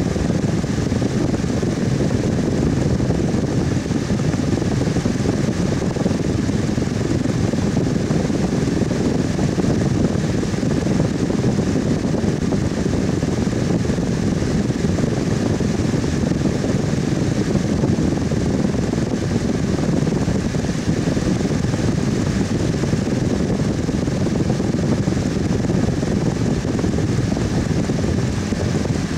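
Electric fan running steadily, a constant low rush of moving air.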